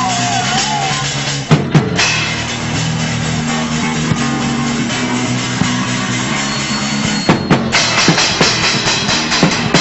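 A live hardcore punk band playing, heard through an old camcorder's microphone: a dense wall of distorted guitar over a drum kit. There are a couple of sharp hits about one and a half seconds in, and fast drumming picks up near the end.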